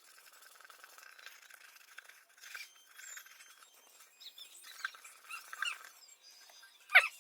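Toothpaste polishing on a glass tabletop: faint rubbing with scattered high squeaks, then two loud, sharp squeals close together near the end.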